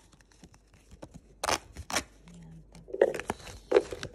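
Paper scratch-off lottery tickets being handled and shuffled on a table: light rustling and scraping, with four sharp snaps or knocks in the second half.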